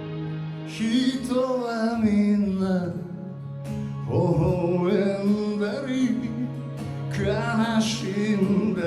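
A slow ballad: a singer's voice with vibrato in three phrases over sustained backing chords.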